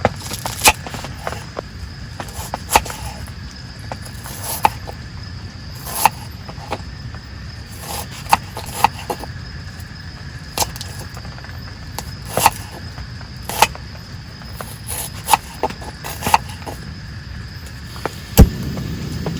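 Sharp irregular clicks and knocks, about one every second or two, with a louder knock near the end. They sit over a steady low rumble and a faint steady high buzz like insects.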